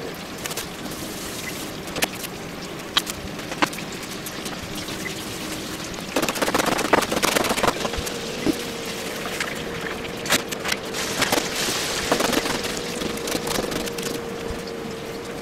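Knife chopping long green onions on a plastic cutting board: scattered single strikes, then a dense run of rapid chops about six to eight seconds in, and more strikes after.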